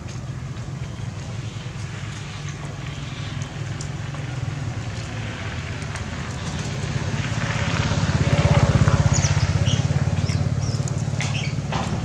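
A vehicle engine running, a low steady hum that grows louder to a peak about two-thirds of the way through and then eases off, as a vehicle passes close by. A few short high chirps come near the end.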